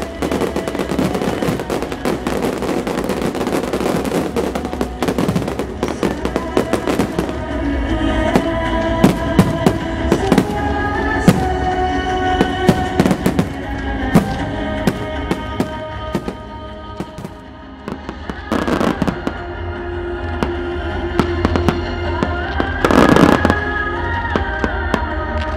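Fireworks display: a dense, continuous barrage of bangs and crackle for the first several seconds, then separate bangs over music with held tones. Two loud bursts stand out about three-quarters of the way through and again near the end.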